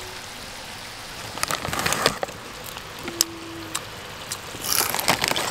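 Crinkly plastic chip packet being rustled in two short bursts, over a steady background hiss.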